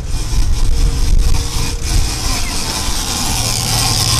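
Boat's outboard engines running steadily under way, with wind and rushing water over them.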